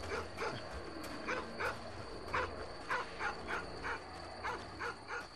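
Dog barking over and over, short barks about two or three a second.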